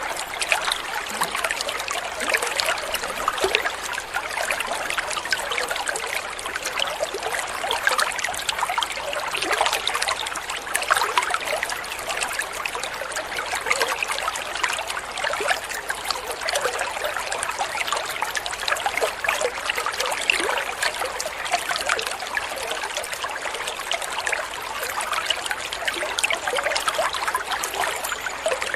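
Running water trickling steadily, a dense stream of small splashes and gurgles.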